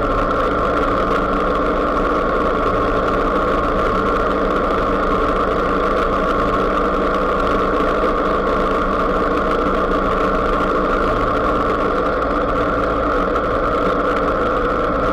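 Motorcycle engine running at a steady cruising speed, with wind and road noise, holding an even pitch with no revving or gear changes.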